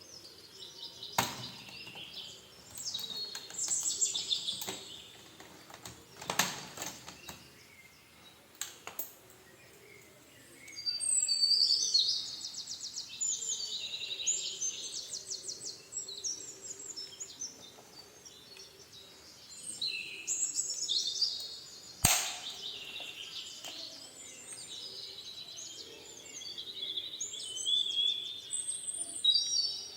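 Small birds chirping and trilling in bouts of quick, high notes. A few sharp clicks or knocks come in between, the loudest about two-thirds of the way through.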